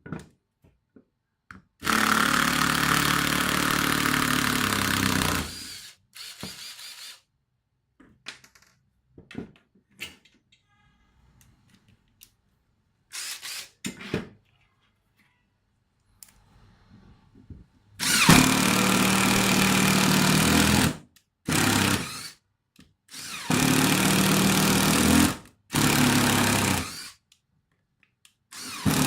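Makita TD134 14.4 V cordless impact driver run in trigger bursts: a long run of about four seconds, then after a pause several shorter runs of one to three seconds each, with small clicks and handling between them.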